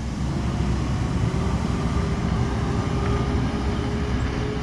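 Peterbilt split-body garbage truck's diesel engine running: a steady heavy rumble with a faint whine that slowly rises in pitch.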